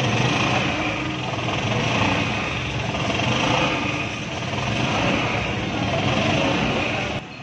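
Steady street noise dominated by a running engine drone, with voices mixed in; it drops off suddenly just before the end.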